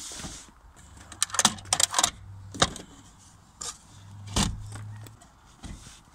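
Hinged plywood bed platform being unfolded and laid in place inside a car: a quick run of sharp knocks and clatters from the wooden panels and their metal strap hinges about a second in, then a few more single knocks.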